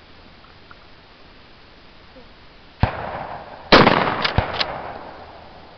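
20-gauge pump-action shotgun firing: a sharp bang about three seconds in, then a louder blast about a second later that dies away over more than a second. Two quick clacks follow, the pump being racked.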